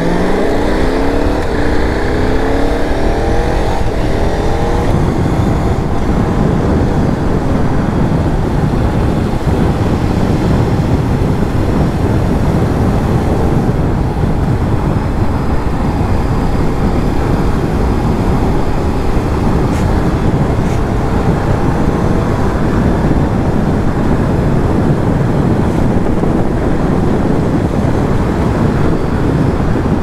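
KTM 990 Super Duke's V-twin engine accelerating, its pitch rising through the first few seconds, then holding steady at cruising speed under a constant rush of wind on the microphone.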